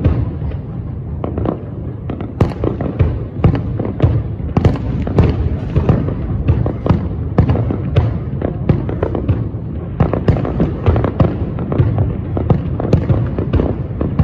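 Aerial firework shells bursting in quick succession, several sharp bangs a second over a continuous low rumble.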